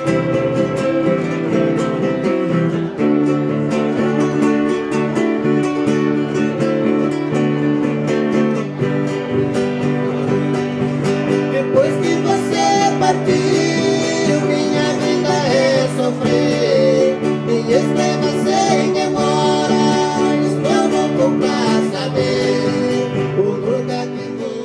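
Music: strummed acoustic guitar playing steady chords, with a singing voice coming in about halfway through. It fades near the end.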